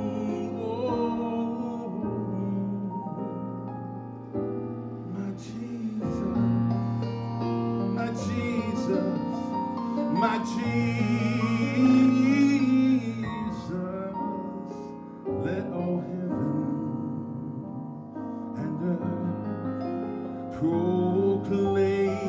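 Slow piano-led music with sustained chords.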